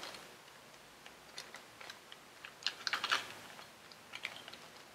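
Faint, scattered light clicks and ticks of small parts being handled as a tin-plated copper crimp terminal for a fuse holder is picked out, with the busiest clicking around the middle.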